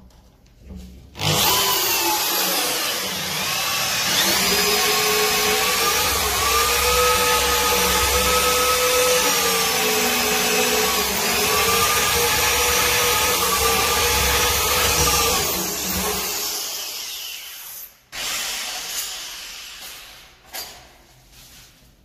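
Handheld electric power tool cutting into a wooden door to fit a lock. Its motor whine dips and recovers as it bites, runs for about fifteen seconds, then stops, followed by a few light rubbing knocks.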